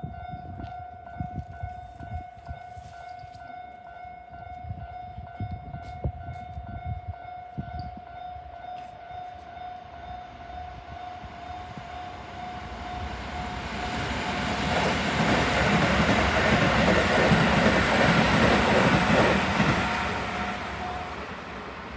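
Japanese railroad-crossing warning bell ringing with a steady, rapidly repeating single-pitched electronic clang while a train passes; the train's rushing noise builds through the middle, is loudest in the last third, then fades, and the bell stops near the end.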